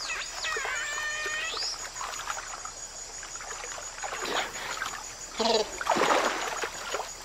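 Giant otters calling: a wavering high call with several overtones that glides down and up over the first second or two. This is followed by splashing in the water, loudest about five to six seconds in.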